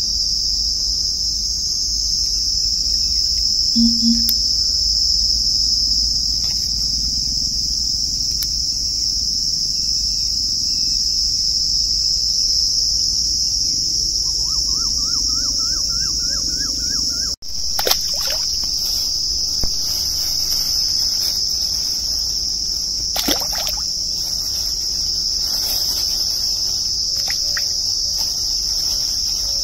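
Steady, high-pitched drone of insects calling without a break. About halfway through there is a short run of quick rising chirps, and the drone breaks off for an instant about two-thirds of the way through.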